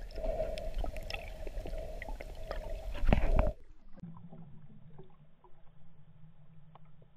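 Muffled underwater water noise picked up by a GoPro in its waterproof housing: a sloshing hiss with small clicks and a louder rush about three seconds in, then an abrupt drop to a faint, dull hum.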